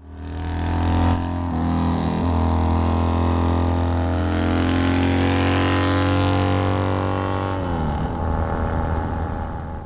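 Custom bobber motorcycle's engine running at a steady cruising speed, then dropping in pitch about eight seconds in as it passes by or eases off.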